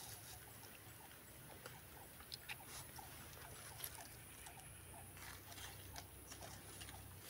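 Near silence: faint scattered small clicks and scratches of fingers handling a small fishing hook while baiting it.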